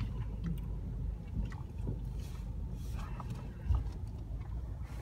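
Low, steady rumble of a car driving, heard from inside the cabin, with a brief low thump a little under four seconds in.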